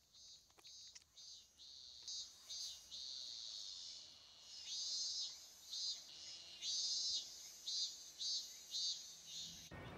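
Insects chirping in a high, buzzing band, faint at first, then in short pulses about twice a second; it cuts off abruptly near the end, replaced by the even noise of a city street.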